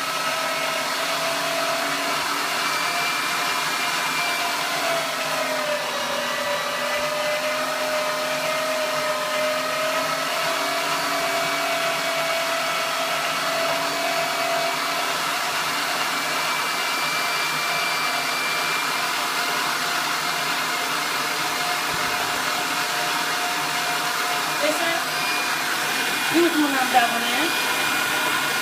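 Geepas electric meat grinder running steadily as onion pieces are fed through and minced, its motor hum dipping slightly in pitch under load about five seconds in. A few short sounds near the end.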